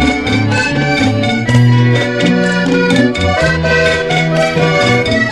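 Cumbia sabinera music: an accordion melody over a bass line and a steady dance beat.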